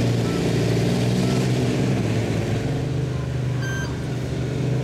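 Pickup truck engine running at a low, steady idle, its pitch dipping slightly past the middle as the truck creeps forward. One short high beep sounds near the end.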